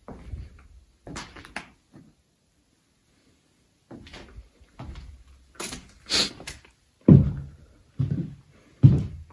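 Footsteps at a walking pace: a run of heavy thuds about one every second, with some sharper crunching near the middle and the heaviest thuds near the end.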